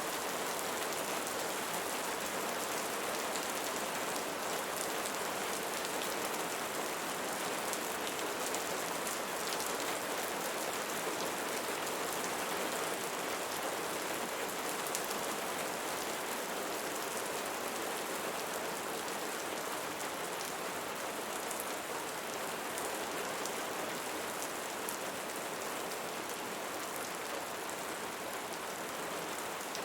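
Steady rain falling, an even hiss of rain with many small drop patters.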